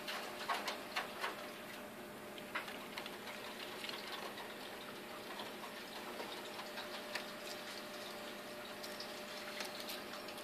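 Steady low hum of a small submersible water pump running in a reptile water bowl, with scattered light clicks and taps, a cluster of them in the first second or so.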